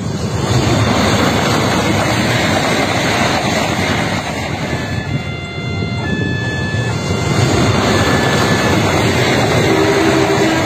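Diesel locomotive-hauled trains running along the line, a steady loud rumble of engine and wheels on rail. A short steady tone sounds near the end.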